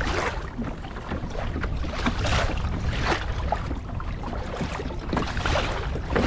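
Choppy sea water slapping and splashing against a kayak's hull in repeated surges, with wind rushing across the microphone.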